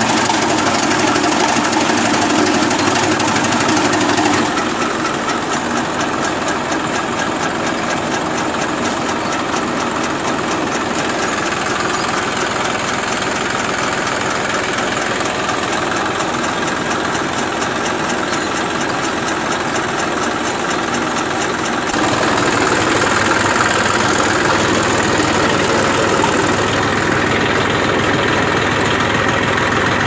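Tractor engine running steadily while it drives a chaff cutter through a shaft, the cutter's flywheel blades chopping green fodder as it is fed in. The sound is continuous, and its character shifts about four seconds in and again about 22 seconds in.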